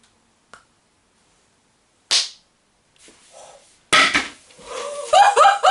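A short, sharp pop about two seconds in: a tightly closed lid blowing off a container of water as pressure builds inside. Just before four seconds there is a sudden loud onset, and near the end come loud, excited wordless exclamations.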